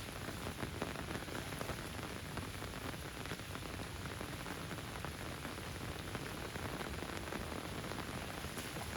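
Steady rain falling, a dense patter of many small drops over an even hiss.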